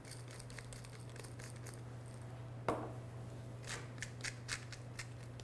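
Hand-twisted salt and pepper mills grinding: faint crackling clicks from one mill in the first second or so, a single sharper click near the middle, then a second run of grinding clicks from the other mill about four seconds in.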